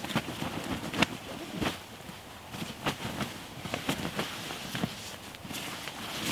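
Rustling of a synthetic sleeping bag and bivy bag being spread out and tucked in on leaf-litter ground, with scattered sharp crackles and taps about every second.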